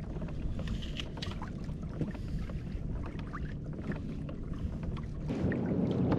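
Water lapping and sloshing against a fishing kayak's hull, with a low rumble and scattered small clicks; the noise grows louder about five seconds in.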